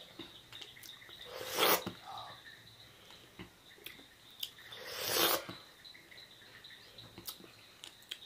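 A person eating sohphie fruit: soft mouth clicks and smacks, with two short breathy rushes of air, one about a second and a half in and one about five seconds in.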